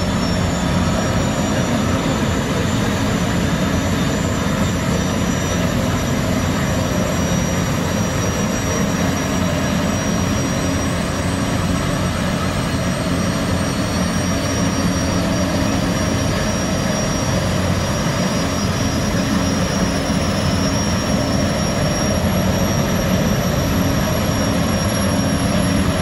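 Twin Allison 501-KF marine gas turbines of a Boeing Jetfoil running at the pier: a steady dense rush with a low hum and a high turbine whine that rises slowly in pitch.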